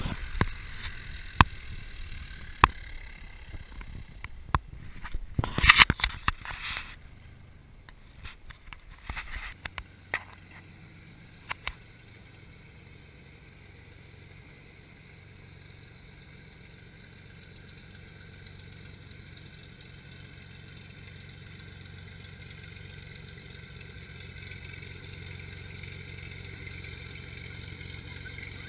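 Beechcraft V-tail Bonanza's flat-six piston engine and propeller running at taxi power, growing steadily louder as the plane approaches. Sharp knocks and clicks in the first several seconds.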